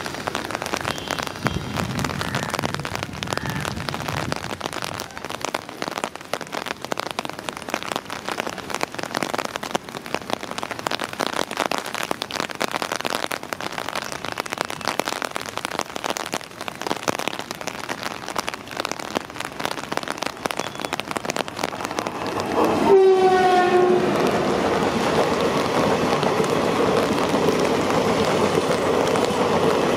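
A steady hiss of rain while an Indian Railways WAP-4 electric locomotive approaches; about three quarters of the way in it passes close with a short horn note that drops slightly in pitch, and the coaches then rush past with a loud steady rumble of wheels on rail.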